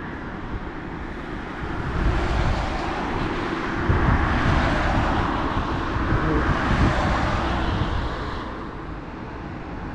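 Road traffic passing on the adjacent road: a rushing tyre-and-engine noise that swells about two seconds in, stays up for several seconds, then fades near the end.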